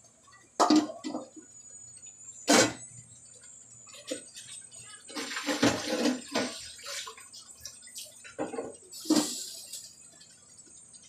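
Liquid splashing in a stainless steel wok of coconut milk and fish, broken by a few sharp metal knocks. A metal lid clanks down onto the pan about nine seconds in.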